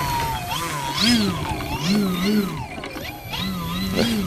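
Electric motor and propeller of a balsa RC airplane (OMP Hobby Bighorn 49) taxiing on grass, the throttle blipped so the whine rises and falls in pitch several times.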